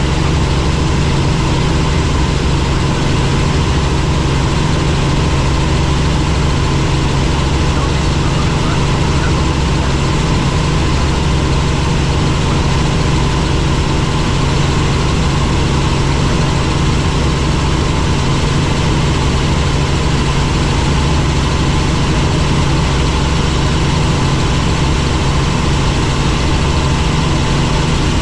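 Helicopter's engine and rotors running with a steady, loud drone and a low hum that does not change.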